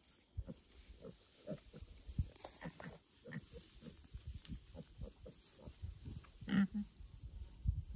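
Pigs grunting often in short low grunts as they graze, with one louder, higher call about six and a half seconds in.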